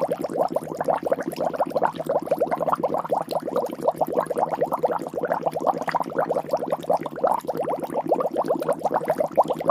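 Continuous bubbling sound effect: a dense, even stream of many quick gurgling blips, like liquid at a boil.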